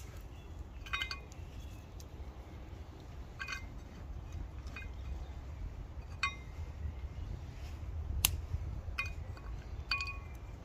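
Small dry twigs snapped and dropped into the metal fire base of a Kelly kettle, about six separate clinks, most ringing briefly like a small chime, one a sharper snap. A low wind rumble on the microphone sits underneath.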